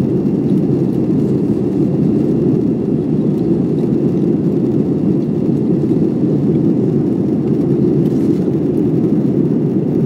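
Jet airliner's engine and airflow noise heard from inside the passenger cabin: a steady, low, even noise with no changes.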